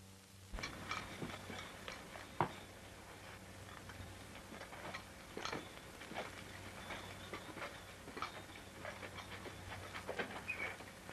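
Irregular sharp clicks and knocks over a steady low hum, starting about half a second in, with the loudest knock about two and a half seconds in.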